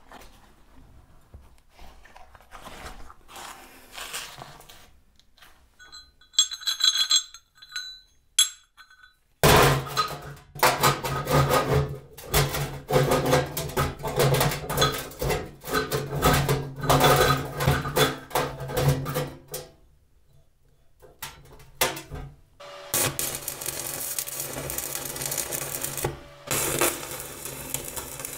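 Steel rebar pieces clinking, scraping and knocking against a steel plate as they are handled, with a busy stretch of sharp metallic clicks in the middle. Near the end a steady crackling hiss of electric arc welding starts as the two rebar pieces are joined.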